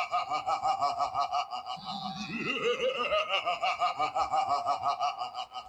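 Laughter-like vocal sound: a fast, even run of pulses at a steady pitch, about eight a second, with a second voice rising in pitch about two seconds in.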